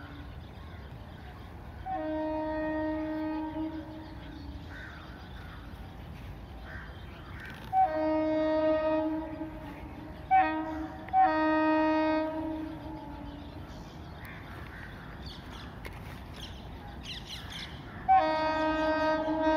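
Locomotive horn of the Deccan Express sounding as the train approaches a station it runs through: five blasts, the third very short and the others one to two seconds long, each starting with a sharp attack. The last is still sounding at the end.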